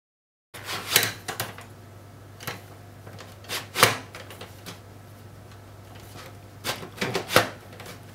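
Sharp plastic-and-metal clicks and knocks from an HP DL580 Gen8 memory cartridge being handled and seated in its bay, in three clusters of strokes, over a low steady hum.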